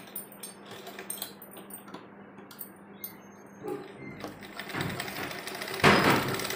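NAAZ domestic sewing machine stitching cotton fabric. It starts up about four seconds in after a few faint handling clicks, and is loudest near the end.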